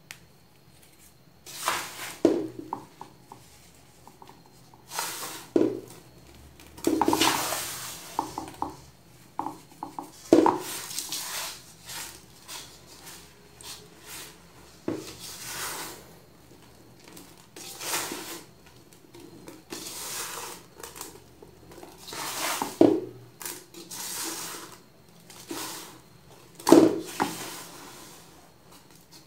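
Hands crushing and crumbling clumps of baking soda in a metal bowl, giving irregular crunchy bursts every second or two with quieter gaps between.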